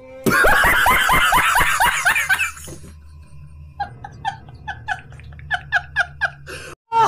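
A man laughing hard in quick repeated bursts for about two seconds. Then quieter, evenly spaced short laughs follow over a steady low hum.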